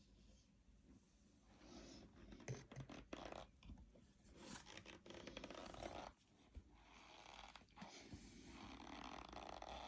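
Packed powder crunching and squeaking as it is squeezed, in a run of rough, raspy crunches that begins about a second and a half in and pauses briefly near the middle.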